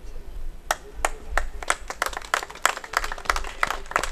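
Audience clapping: a few scattered claps about a second in, quickly building into dense, continuous applause.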